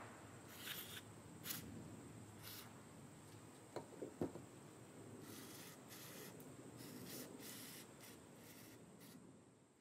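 Faint, irregular scraping and rubbing strokes on the small-engine carburetor as old gasket material is cleaned off its surface, with two light clicks about four seconds in.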